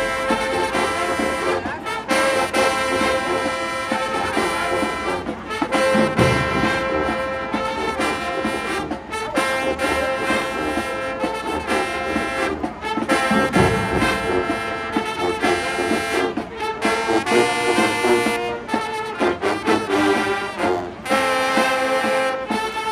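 Marching band brass section playing loud sustained chords, with bass drum hits about six and thirteen seconds in.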